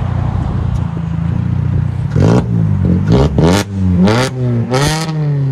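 Straight-piped 2012 Hyundai Elantra's four-cylinder running at idle, then revved in about five quick blips from about two seconds in, the pitch rising and falling with each and dropping back near the end. The exhaust is factory catalytic converter then 2-inch pipe all the way back, with the muffler and resonator deleted.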